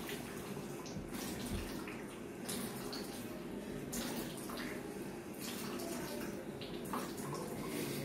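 Warm salt water streaming and dripping from a man's nostrils into a bucket as he expels it through the nose in the yogic cleansing practice shitkrama, with a few louder spurts and splashes at irregular intervals.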